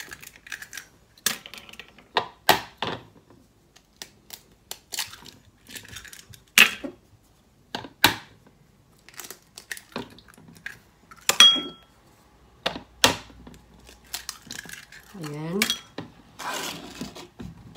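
Eggs tapped against the rim of a bowl and cracked open one after another: a string of sharp knocks and clicks, with one ringing clink about eleven seconds in.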